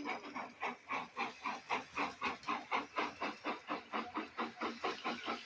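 Steam locomotive chuffing steadily as it pulls away with its train, about five exhaust beats a second.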